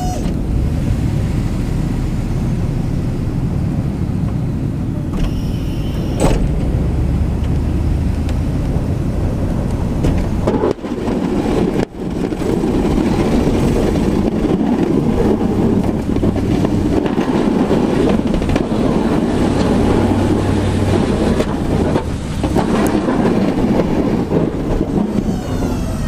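Pickup truck with a snowplow driving through snow: a steady engine and road rumble, briefly dropping out twice about eleven and twelve seconds in.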